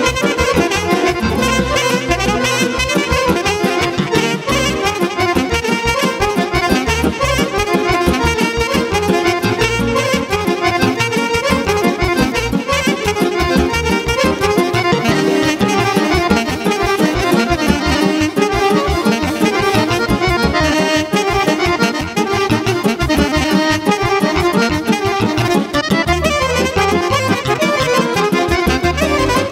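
Live Serbian folk band with drum kit and keyboard playing a fast Vlach kolo dance medley, the melody over a steady driving beat.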